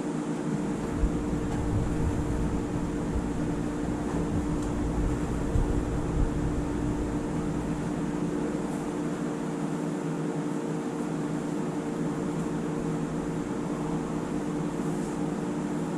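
Steady mechanical hum with a constant low drone, of the kind a room air conditioner or fan makes. A few soft low thumps come in the first several seconds.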